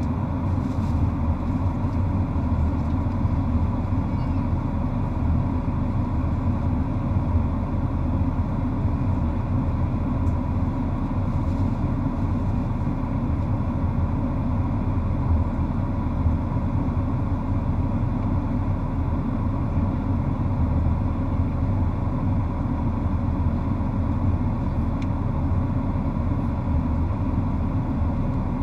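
Steady cabin noise inside a Boeing 737-800 in flight: a low, even rumble of airflow and its CFM56 turbofan engines, with a faint steady tone above it.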